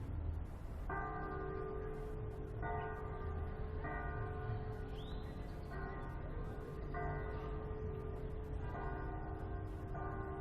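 Church bells ringing a repique, the third call to Mass. The bells start about a second in and are struck about once a second, with a lower bell's hum ringing on under the strikes.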